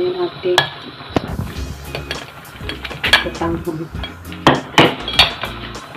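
Metal tongs clinking and scraping against a ceramic bowl while food is lifted out: a string of sharp, irregular clinks.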